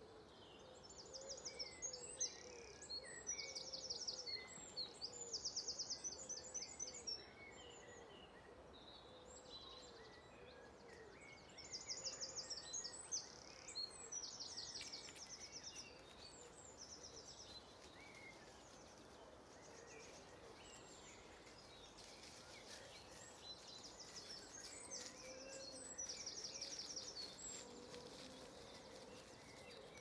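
Songbirds singing in the morning chorus: fast, high trilled phrases repeated in three spells, at the start, around twelve seconds in and near the end, with quieter gaps between.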